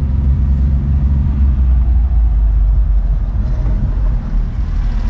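Honda Acty mini truck's engine running steadily as the truck drives, heard from inside the cab.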